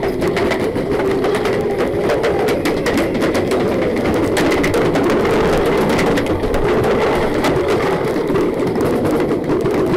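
Many sharp, irregular pops of paintball markers firing, with balls striking the wooden walls, over a steady low noise on the helmet-camera microphone.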